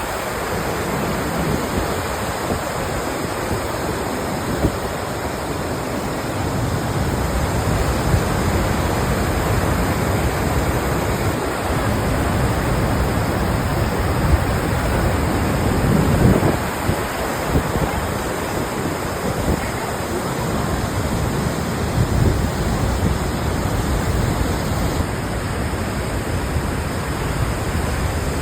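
Steady rushing roar of the Gullfoss waterfall, with gusts of wind buffeting the microphone now and then.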